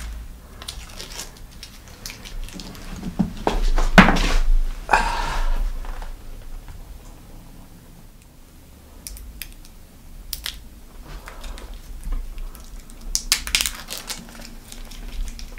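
Paper backing being peeled and pulled off double-faced tape on a bicycle handlebar: irregular crinkling and rustling of paper and hands, loudest about four to five seconds in.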